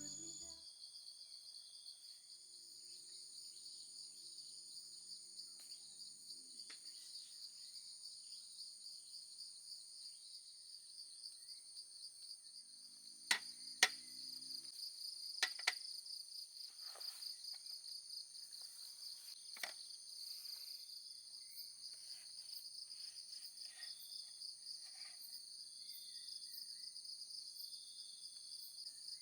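Steady, finely pulsing high-pitched chirring of an insect chorus of crickets. Around the middle come a few sharp clicks or knocks, two close pairs and one more a few seconds later, and a faint low hum comes and goes twice.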